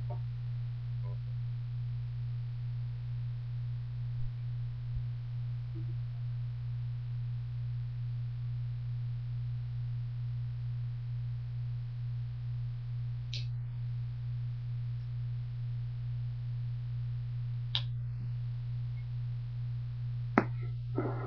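Handheld fetal doppler's speaker giving a steady low hum with a faint uneven pulsing under it as the probe is moved over the belly searching for the baby's heartbeat, which is not yet picked up. A few faint clicks, and a couple of sharper knocks near the end from the probe being handled.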